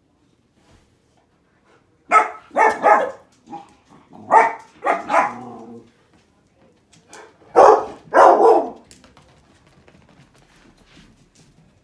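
A puppy barking in three clusters of two or three barks each. The loudest pair comes about two-thirds of the way in.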